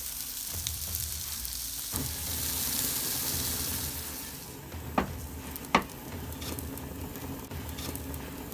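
Tandoori prawns and flatbreads sizzling on a gas barbecue grill over open flames, a steady hiss. Two sharp clicks come about five and six seconds in.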